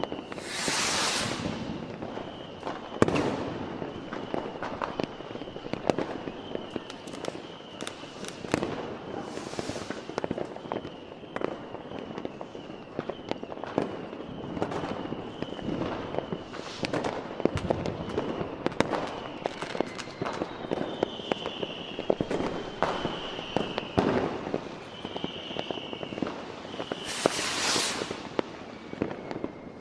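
Fireworks display: a steady run of bangs and cracks, with a few longer hissing, crackling bursts near the start, about a third of the way in, and near the end. A faint high beep repeats under the bangs for most of the first two-thirds.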